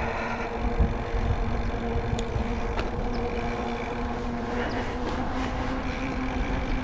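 Wind buffeting the microphone and tyre noise as a mountain bike rolls along wet pavement, over a steady low hum of road traffic. A couple of faint ticks about two to three seconds in.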